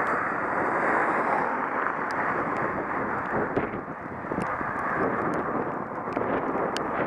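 Steady rush of wind buffeting the microphone of a camera moving along a road, with scattered light clicks from about two seconds in.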